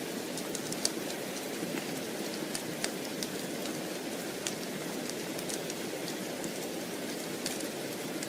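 Steady rain, a dense even hiss, with scattered sharp little ticks and pops throughout.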